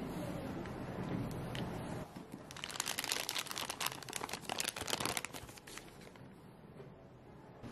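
Thin clear plastic piping bag full of frosting crinkling as hands handle it, for about three seconds starting around two seconds in.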